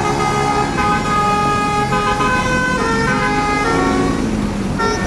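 Telolet horn on a tour bus playing a tune: a run of held multi-tone notes that step to a new pitch every half second to a second, over a low rumble.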